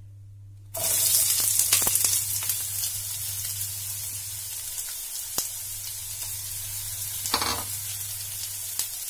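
Sliced onions dropped into hot oil in a nonstick frying pan: a sizzle starts suddenly about a second in, loudest at first, then settles into steady frying with scattered small pops.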